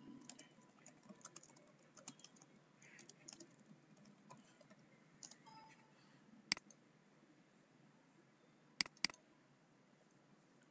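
Faint typing on a computer keyboard for the first several seconds, then a single sharp mouse click about six and a half seconds in and a quick double-click near the end.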